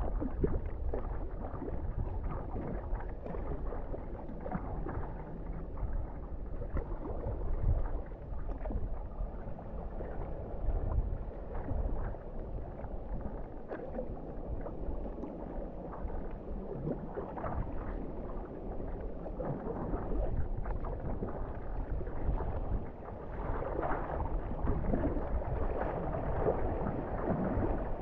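Water splashing and lapping around a sea kayak on the move, with wind rumbling on the microphone.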